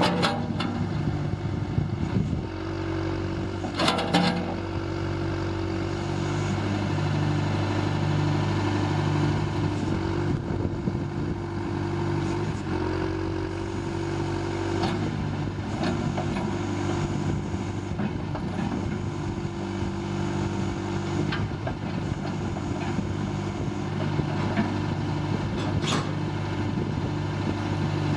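John Deere 410D loader backhoe's diesel engine running steadily, with an occasional sharp clank.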